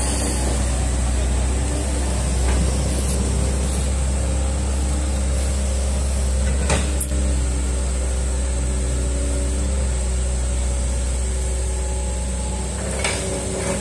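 Hitachi hydraulic excavator's diesel engine running steadily while it works, with a couple of short clicks about seven seconds in.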